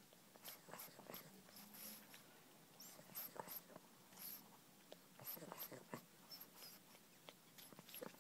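Pug puppy snuffling and breathing faintly through its short nose, with small irregular mouth clicks as it mouths a person's arm.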